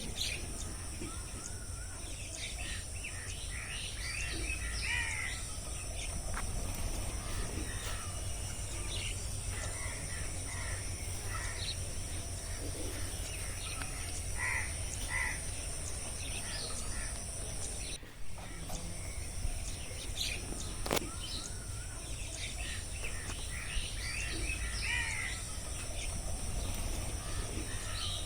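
Jungle ambience: many birds chirping and calling over a steady high-pitched insect drone and a low rumble. There is a brief break partway through, after which the same pattern repeats.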